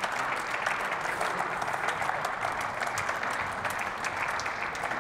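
A group of parliament members applauding in a large hall: steady clapping of many hands, welcoming a speaker to the lectern.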